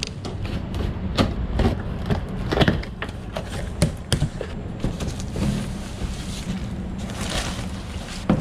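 Cardboard parts box being opened and packing paper handled: a run of scattered knocks and clicks, then a longer paper rustle about seven seconds in, over a steady low hum.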